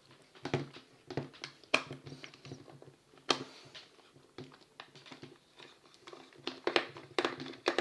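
Hand screwdriver working a tight screw out of a plastic power drill casing: irregular clicks, taps and scrapes of metal on plastic, with a few sharper knocks.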